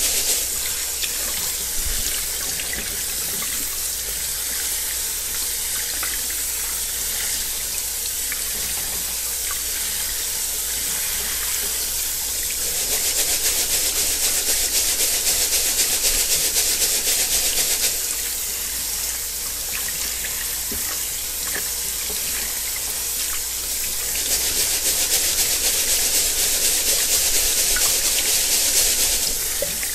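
Kitchen faucet running through a fine-mesh strainer of rice into a stainless steel sink, the water splashing steadily as the rice is rinsed. The splashing grows louder for several seconds twice, about halfway through and again near the end.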